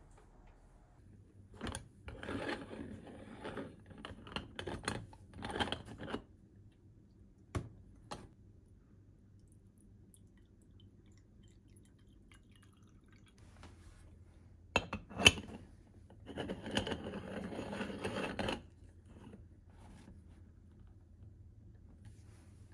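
Soft rustling and clicks of a hair straightener being worked through hair, then handling sounds at an aluminium Bialetti Moka Express stovetop coffee maker: a sharp metallic clink, the loudest sound, followed by about two seconds of water being poured into its base.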